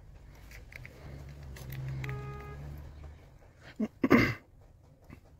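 Small clicks and a loud, short scrape-clack about four seconds in as a plastic pry tool works against the metal frame of a stripped Sony A7 III camera body. Under it a low rumble fades out after about three seconds, with a brief pitched tone about two seconds in.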